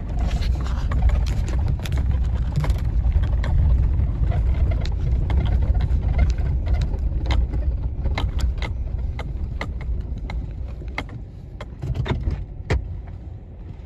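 GMC pickup truck driving slowly over a rough field, heard from inside the cab: a steady low rumble of engine and tyres with scattered clicks and knocks as the truck bounces. The rumble eases off a little near the end.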